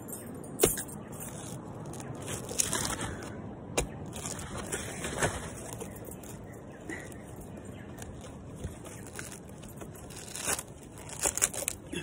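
Loppers working into the fibrous husk of a sprouting coconut: three sharp snaps, one about half a second in, one near four seconds and one about ten and a half seconds in, between scraping and tearing as husk fibres are pried and pulled away.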